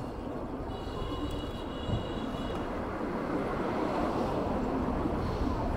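Steady rushing noise of wind on the microphone and road traffic while riding a bicycle, swelling slightly. A brief thin high whine comes about a second in.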